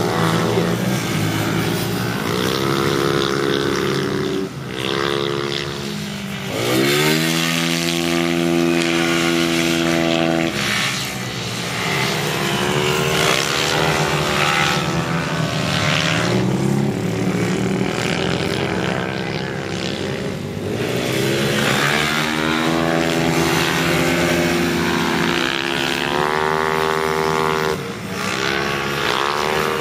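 Race-prepared scooter engines revving hard as riders lap the track, their pitch climbing steeply under throttle and holding high, then dropping off before climbing again; the sharpest rises come about seven seconds in and again around twenty-two and twenty-six seconds in.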